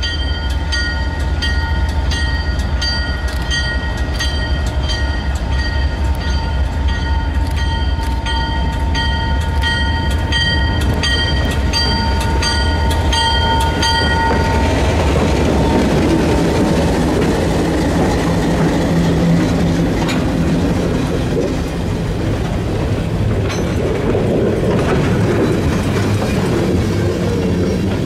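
Diesel locomotive pulling tank cars slowly past at close range: a low engine rumble with its bell ringing at a steady beat. The bell stops about halfway through as the locomotive goes by, and the noise of the tank cars' wheels rolling on the rails takes over.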